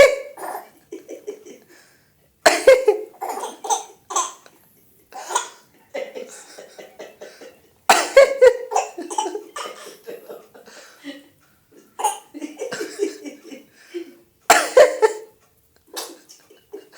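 An adult coughing sharply, about five times, each cough followed by a baby's laughter in short bursts.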